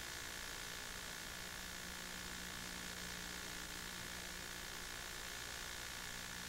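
Steady hiss with a low hum and no distinct events: the recording's noise floor, with no sound from the scene itself.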